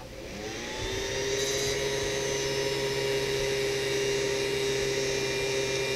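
Creality CR-10S 3D printer's cooling fan spinning up as the printer restarts on new firmware: its pitch rises over about the first second, then it runs steadily with a noisy whine.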